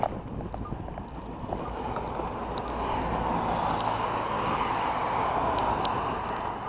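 Wind rushing over a moving camera's microphone, swelling about two seconds in and easing off near the end, with a few faint clicks.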